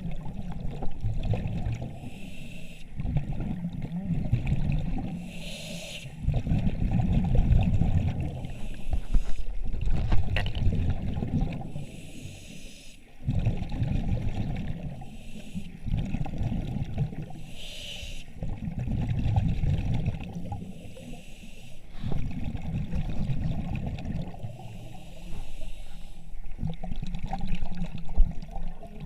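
Diver breathing on surface-supplied air, with exhaled air bubbling and gurgling out in slow cycles every two to three seconds.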